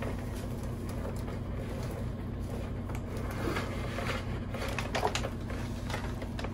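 Cables and wires rustling and scraping as they are fed and pulled through an overhead panel, with scattered small knocks and ticks, over a steady low hum.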